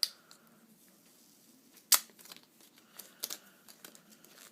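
Power adapter packaging being handled and pulled apart: a sharp click about two seconds in, then a string of light clicks and rustles.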